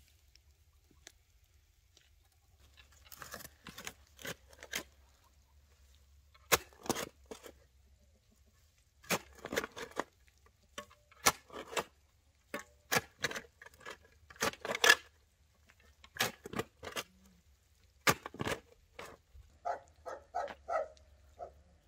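Metal spade digging in a garden bed: irregular scrapes and chops of the blade in soil, coming in short clusters of strokes.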